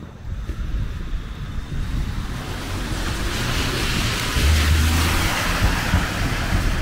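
Articulated low-floor tram passing close by on wet rails, a rumble with a hiss that swells and is loudest in the second half. A short low hum sounds about four and a half seconds in.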